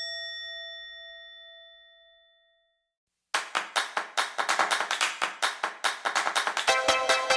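A single bell chime rings and fades away over about three seconds, an editing sound effect marking a lost bet. After a short silence, a fast run of typewriter-like clicks plays as on-screen text types out, and electronic music starts near the end.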